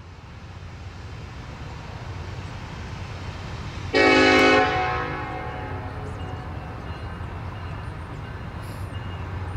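Norfolk Southern diesel freight locomotives pulling out of a siding, their engine rumble growing steadily louder. About four seconds in, the locomotive horn gives one short, loud blast.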